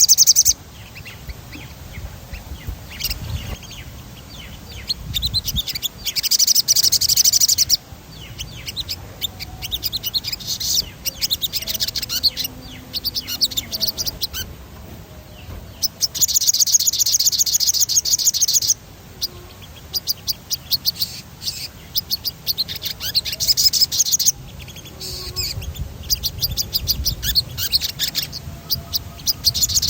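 A sogon singing in full song, its long rapid high trills (ngerol) repeating every few seconds with sharp chirping notes in between.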